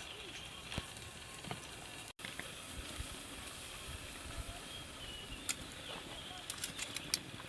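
Wood fire crackling with a steady hiss, scattered sharp pops that come more often in the second half, and a momentary dropout about two seconds in.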